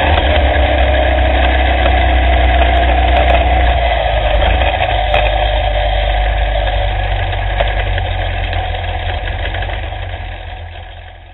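Engine of an off-road race vehicle heard through an onboard camera as it drives, a steady loud drone that fades out near the end.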